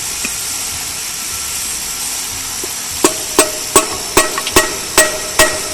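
A hammer striking a metal gearbox part in a quick run of ringing blows, about two to three a second, starting about three seconds in. Before the blows there is only a steady hiss.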